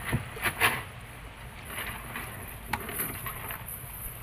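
Hand-thrown cast net worked from a small wooden boat: a few short splashes and knocks in the first second as the net goes out, then faint scattered ticks and a steady hiss while it is hauled back in.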